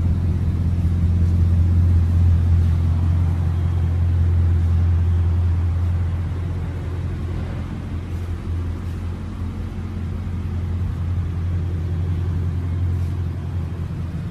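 Bugatti Chiron's quad-turbo W16 engine idling steadily, an even low-pitched hum with no revving.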